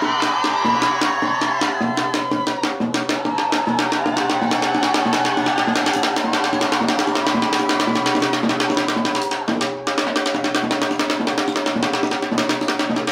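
Live rock band music: drums keeping a fast, even beat under bass guitar and sustained pitched parts, with a brief break just before ten seconds in.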